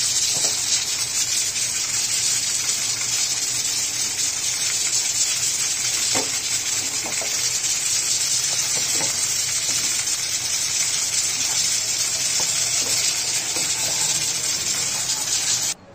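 Potatoes and fried onions sizzling in oil in a frying pan, with a steady hiss, stirred with a spatula that knocks against the pan a few times. The sizzle cuts off suddenly near the end.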